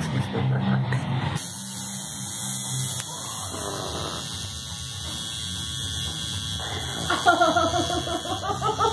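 Coil tattoo machine buzzing steadily as it needles the top of a foot. About seven seconds in, a high-pitched wordless voice joins in.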